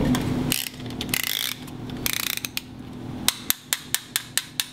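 Ratcheting piston ring compressor being tightened around a piston: a few brief scuffs as the band is fitted, then a run of sharp ratchet clicks, about five a second, in the second half.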